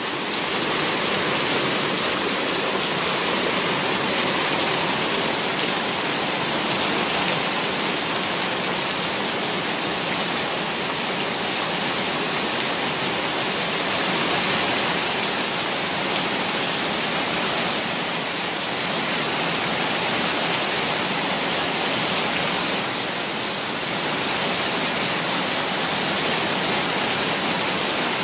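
Heavy-rain floodwater jetting up and cascading over concrete steps and channels in a steady rush.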